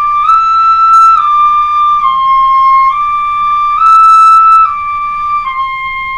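Pífano in C playing a slow three-note stepwise exercise in its second octave: D, E, D, C, D, E, D, then a held C, each note lasting a little under a second.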